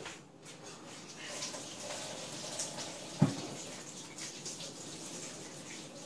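Water running steadily from a tap, with one sharp knock about three seconds in.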